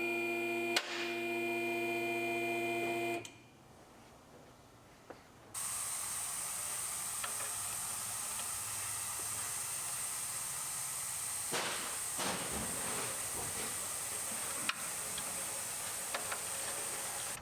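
Background music that cuts off about three seconds in. After a short near-silence comes a steady hiss with a faint high whine, broken by a few light clicks.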